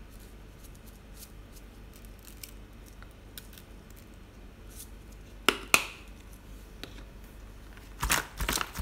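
Chili powder shaken from a shaker bottle onto raw chicken wings in a plastic tub: faint light ticks, then two sharp clicks just over halfway through. Near the end the plastic tub rattles and rustles as hands start mixing the seasoning into the chicken.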